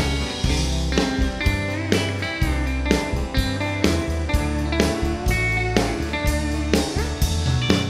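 Live country band playing an instrumental break: a Telecaster-style electric guitar plays a lead line with string bends over bass and a steady drum beat.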